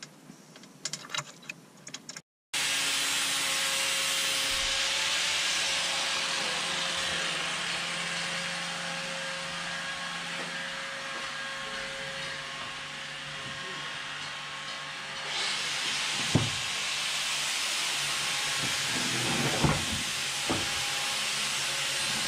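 Light clicks of hand tools working on the engine at first, then a steady loud hiss of unseen shop machinery or air. The hiss thins out in its upper part about two-thirds of the way through, with a few knocks near the end.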